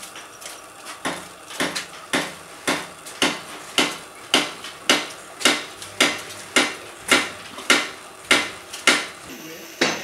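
Steady hammering: sharp, clinking blows about two a second, evenly spaced.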